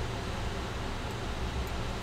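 Steady low hum with faint hiss: background room noise between spoken phrases, with no distinct sound event.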